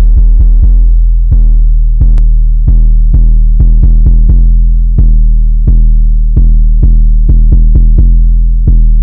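Instrumental intro of a hip-hop beat: heavy sustained bass with sharp drum-machine hits, no vocals.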